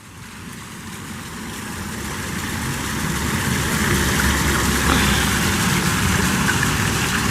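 Muffled, steady rushing and rumbling noise picked up by a camera sealed inside a plastic waterproof pouch as it is dunked into pool water, swelling over the first few seconds and then holding steady.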